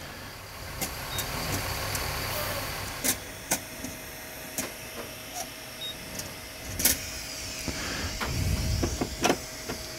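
Sugon 8620DX hot-air rework station blowing a steady hiss of air from its handpiece, with a faint steady whine joining about three seconds in. A few sharp clicks and knocks come from the handpiece and holder being handled.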